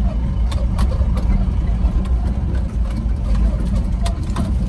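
Mahindra Bolero pickup's diesel engine running at low speed on a rough dirt track, heard from inside the cab as a steady low rumble. Several short sharp knocks and rattles are scattered through it.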